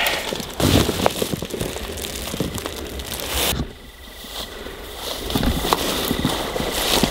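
Dry branches and dry grass crackling and rustling as a person pushes through brush and then walks through the grass, with an uneven run of small snaps and brushing sounds.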